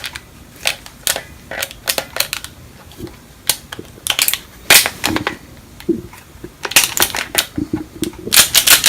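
Irregular sharp clicks and clacks of a TSD/UHC .357 Magnum spring-powered airsoft revolver and its shells being handled, some coming in quick clusters, the densest near the end.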